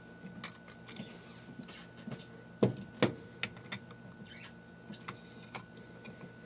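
Handling noise from an RB67 220 film insert and film back: scattered light clicks and knocks of the parts being moved and fitted, with two louder clicks close together a little before halfway.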